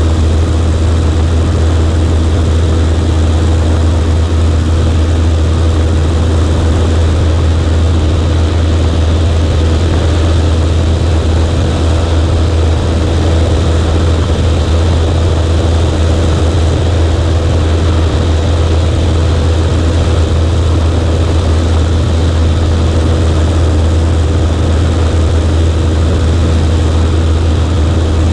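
Cessna 140A's air-cooled flat-four engine and propeller running steadily: a loud, even drone with a strong low hum that holds the same pitch throughout.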